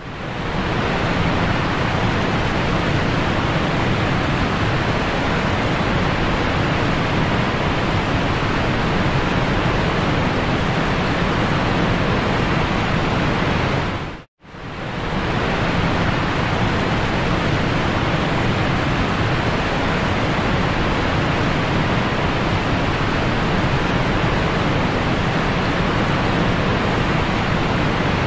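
Steady rushing noise from a fast-moving boat, its wake churning white water, with heavy wind on the microphone. It cuts out for an instant about halfway through, then carries on unchanged.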